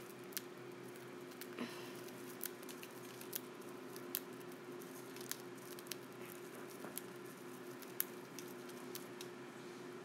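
A cockatiel eating from a spray of millet, its beak cracking the seeds in faint, irregular clicks about once a second, over a steady low hum.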